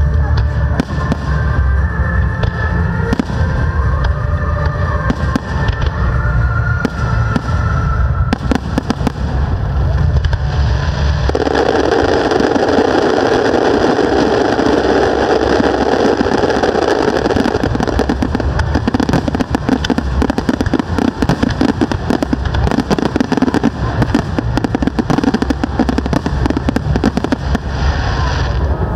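Aerial fireworks display: a continuous barrage of shell bursts, bangs and crackling stars, with music playing alongside. The crackling grows denser and louder from about ten seconds in.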